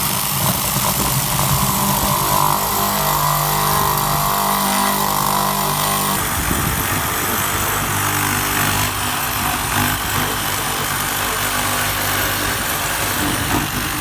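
Power saw running steadily as it cuts into thick wood. Its motor note shifts about six seconds in, and the saw stops right at the end.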